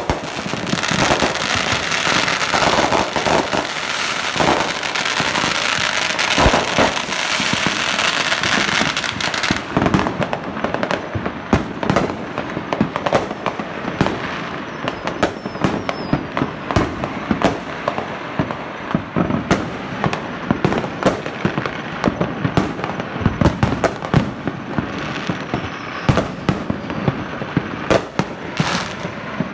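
Fireworks going off: a dense, unbroken crackling for about the first nine seconds, then many separate sharp bangs and pops at uneven intervals.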